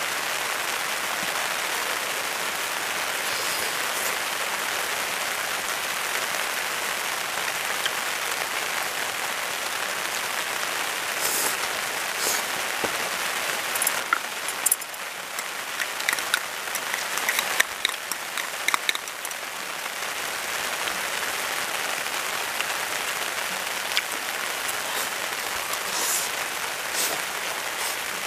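Beef and onion simmering in a frying pan over a charcoal grill, a steady sizzling hiss, with a few light clicks and taps of utensils in the middle.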